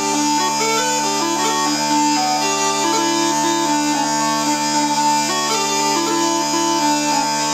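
Northumbrian smallpipes in D playing a lively tune on the keyed chanter, over a steady drone chord from the hard D, soft A and high D drones.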